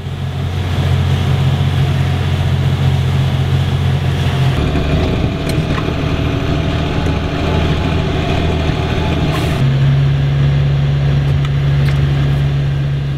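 Engine running steadily: a loud low drone whose pitch shifts abruptly twice.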